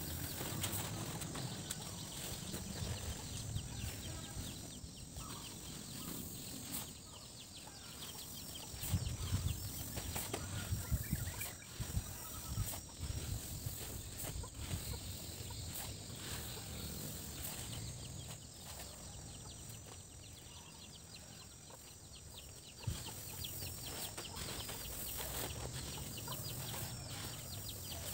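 Dry unhusked rice grain (paddy) being scooped by hand and poured into sacks, a rustling, pattering pour of grain with scrapes and handling of the plastic sacks and tarp, coming in irregular spells and loudest around ten seconds in.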